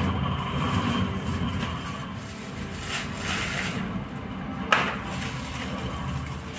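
Aluminium foil crinkling as rotis are wrapped in it, over a steady low rumble, with one sharp click nearly five seconds in.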